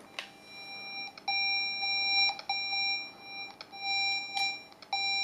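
Cable-tracing amplifier probe (Trend Networks R180001) sounding a steady electronic tone through its speaker as it picks up an analog tracing signal on the cable's wires. The tone is faint at first, comes in loud about a second in, then drops out and returns several times as the probe tip moves among the wires. It sounds loudest near the toned pair.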